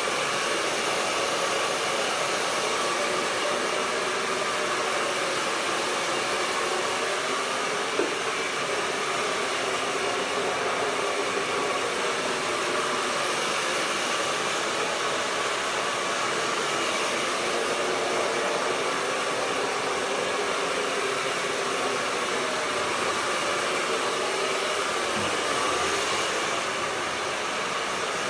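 Handheld hair dryer blowing steadily on the hair, a continuous airy whir, with one short click about eight seconds in.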